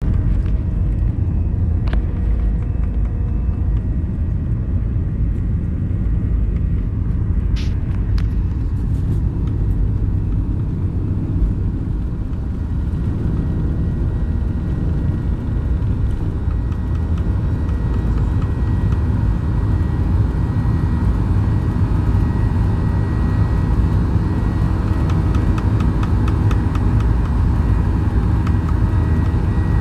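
Boeing 737-800 heard from inside the passenger cabin: a loud, steady low rumble from its engines and the aircraft moving, growing stronger in the higher range from about halfway through as the takeoff gets under way.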